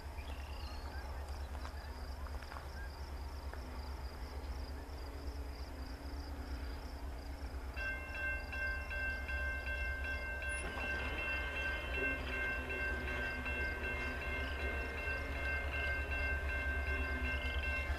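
Railroad crossing warning bell switches on about eight seconds in and keeps ringing steadily as a train approaches, over crickets chirping and a low rumble that slowly grows louder.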